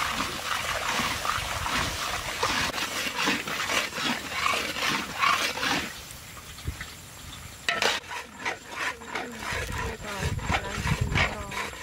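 Sugar syrup boiling and sizzling in a large metal wok while a metal spatula stirs and scrapes through it. About six seconds in it turns quieter, then comes a quick run of clicks and a low rumble.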